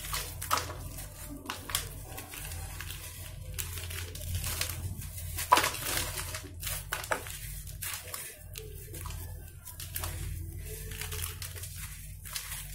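Dry sand-cement mix crumbled by hand and poured into a bowl of water: gritty crunching and crackling with a patter of falling grains, in irregular crackles that come sharpest near the start and about halfway through.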